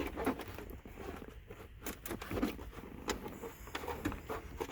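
Scattered light clicks, knocks and rattles of plastic dashboard trim being pulled and wiggled as it resists coming loose.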